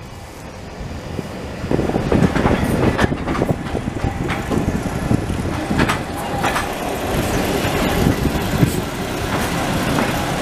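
Narrow-gauge railway carriage rolling along the track, its wheels rumbling and clicking over rail joints and points, heard from on board. It gets louder about two seconds in.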